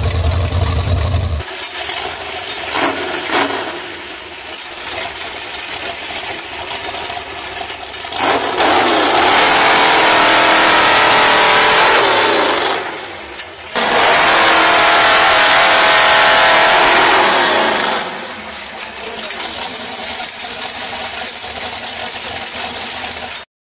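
V8-engined chainsaw running and cutting through large logs, with two long stretches at high revs under load and a brief drop between them, and quieter running before and after. It cuts off abruptly near the end.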